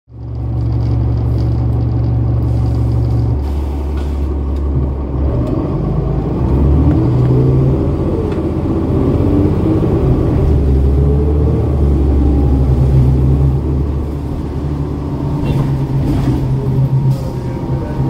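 Cummins ISL9 inline-six diesel engine of a 2011 New Flyer Xcelsior XD40 transit bus idling, a steady low drone that fades in at the start.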